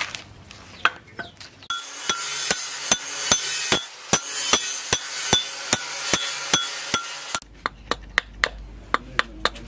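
Series of sharp, evenly spaced blows, about two to three a second, from a hatchet chopping and shaping a wooden handle blank on a chopping block. A steady hiss runs under the blows through the middle stretch.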